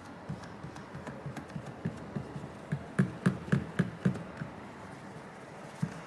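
Handling noise on a workbench: a run of light knocks and taps. They come several a second and are loudest about three to four seconds in, with one more near the end.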